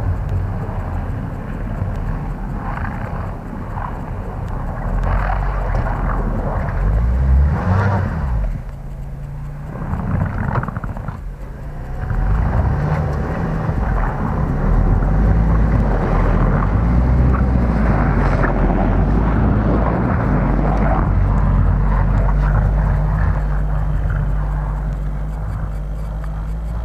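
Short-wheelbase Suzuki Escudo SUV driving through snow, its engine revving up and down under load while the tyres churn the snow. It gets louder as it comes close, about halfway through, then slowly fades as it drives away.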